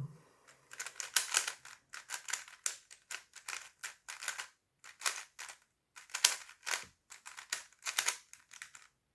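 Plastic Rubik's cube layers being twisted by hand: a quick, irregular run of short clicking, scraping turns as a corner-twisting sequence is worked through.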